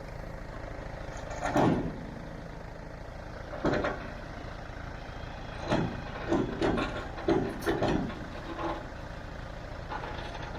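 Truck engine idling steadily, with a sharp metallic clank about a second and a half in, another near four seconds, and a quick run of knocks and clanks around six to eight seconds, as during unloading a truck off a trailer.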